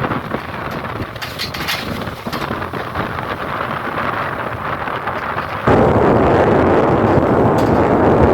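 Strong wind gusting and buffeting the microphone. About two-thirds of the way in it suddenly becomes louder and steadier.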